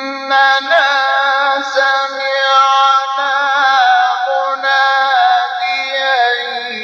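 A male reciter chanting the Quran in melodic tajweed style, holding and ornamenting long notes with a wavering vibrato and slow rises and falls in pitch.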